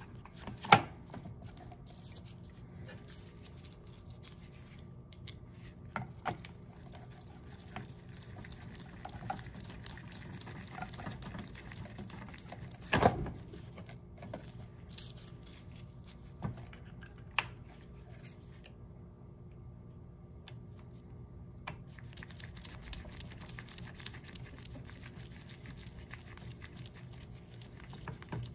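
Scattered light clicks and knocks from handling a Jeep Cherokee AC blower motor's plastic housing and its blower control module, with a flat-blade screwdriver working the module's screws into the plastic. One louder knock comes about halfway through.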